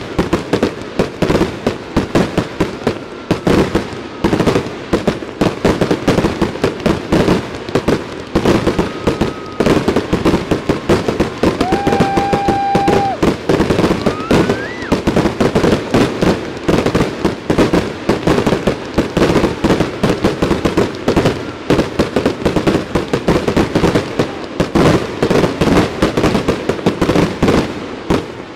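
Fireworks display with aerial shells bursting in a dense, continuous barrage of rapid bangs and crackles. A few brief whistles sound around the middle, and the barrage eases off at the very end.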